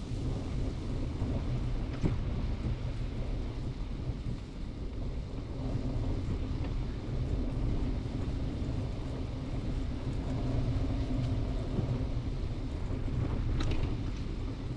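Steady low rumble of wind buffeting a GoPro's microphone and tyre noise from a bicycle riding through snow, with a sharp click about two seconds in.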